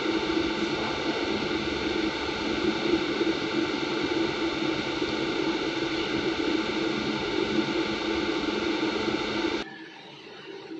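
Steady loud hiss with a low hum running under it, stopping abruptly about a second before the end.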